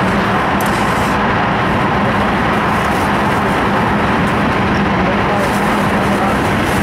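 Running noise of an E5 series Shinkansen train heard inside its passenger cabin: a steady, loud rushing noise with a constant low hum underneath.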